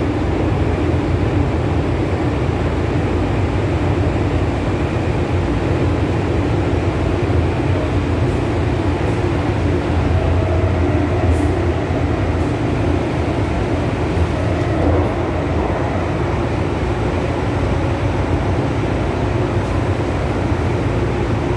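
MTR M-Train electric multiple unit running, heard from inside the passenger car: a steady, loud rumble of wheels on rail and running gear.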